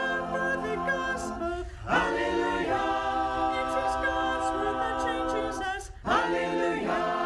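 An unaccompanied choir sings a Hallelujah acclamation before the gospel in long held chords. New phrases begin about two seconds and six seconds in.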